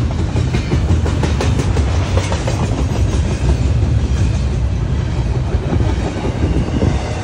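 Double-stack intermodal container train passing, its well cars rolling on the track with a steady low rumble and repeated wheel clicks over the rail joints, thickest in the first couple of seconds.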